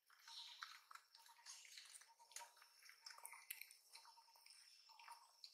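Near silence: faint crackling of dry leaves under a long-tailed macaque's footsteps, with faint intermittent chirping in the background.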